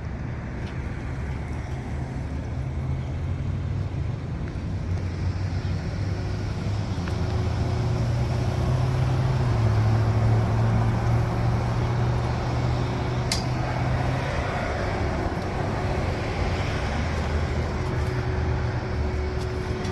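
Pickup truck's engine and road noise heard from the cab while driving, a steady low hum that builds from about six seconds in to a peak around ten seconds as the truck speeds up, then eases to a steady cruise. The truck is a 2000 Nissan Frontier XE with its KA24DE four-cylinder.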